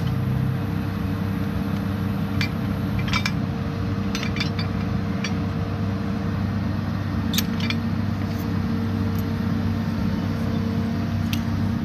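Excavator diesel engine idling steadily, with scattered sharp metal clinks from steel shackles and wire-rope sling hardware being hooked onto the bucket's lifting hook.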